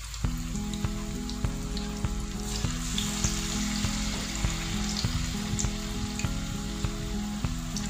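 Batter-coated banana pieces sizzling in hot frying oil in a pan, a steady crackling hiss. Background music with a steady beat and a simple melody starts just after the beginning and runs alongside.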